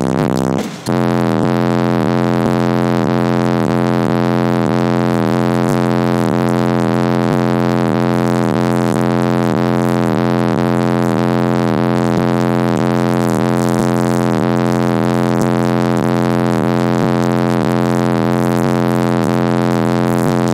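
Car audio system with Audio Que 15-inch subwoofers playing a loud, bass-heavy track at half volume while the new subs are still being broken in. The sound pulses about twice a second, with a brief dip and a change of note about a second in.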